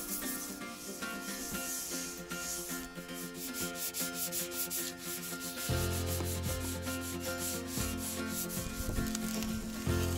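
Hand sanding of a freshly painted boat hull with a fine Scotch-Brite abrasive pad and sandpaper on a sanding block: quick back-and-forth scuffing strokes, denibbing dust and roller fluff from the new topcoat.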